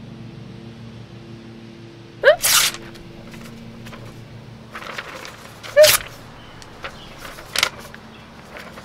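A person hiccuping: two loud, sharp hiccups, about two and six seconds in, then a softer one near the end.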